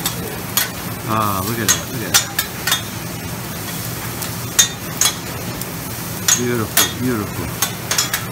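Metal spatulas clacking and scraping on a flat-top griddle as a cook stir-fries, with a steady sizzle of food frying underneath. The clacks come at irregular moments throughout.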